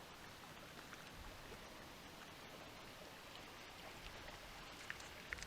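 Faint, steady rush of flowing river water, with a few small clicks near the end.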